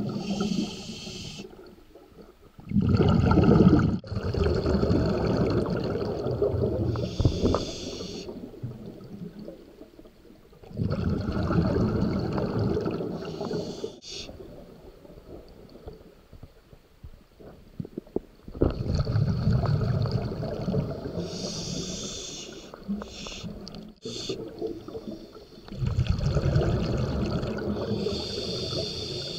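Scuba diver breathing through a regulator underwater: each breath brings a rushing hiss and a gurgling rumble of exhaled bubbles, coming in several separate bouts a few seconds apart with quieter gaps between.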